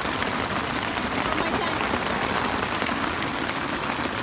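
Hail falling steadily: a dense, even patter of countless small hailstones striking a tent and the ground around it.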